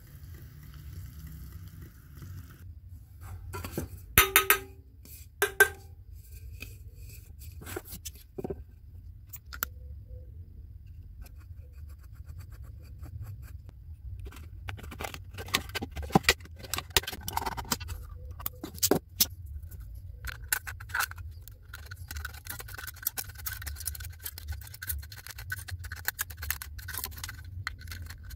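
Aluminium drink cans being handled and cut by hand: a couple of loud knocks about four to six seconds in as cans are set down, scattered clicks, then a long run of scraping and cutting as a craft knife scores the thin can wall and scissors cut through it. A steady low hum sits underneath.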